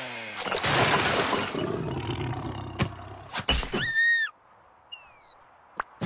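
Cartoon sound effects with no dialogue: a loud noisy crash at the start, then high squeaky gliding cries about three seconds in, a short falling whistle about five seconds in and a sharp click near the end.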